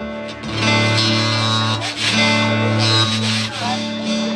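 Amplified guitar: low notes plucked and left to ring, one after another, each sustaining for about a second.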